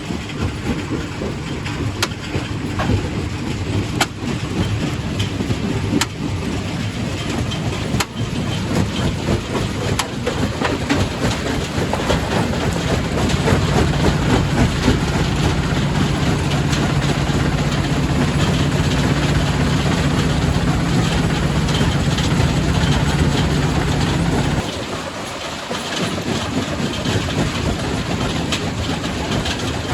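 Quarry primary rock crusher running, with rock clattering and crushing over a steady low machine hum. The low hum drops out for about a second near the end, then the crushing noise carries on.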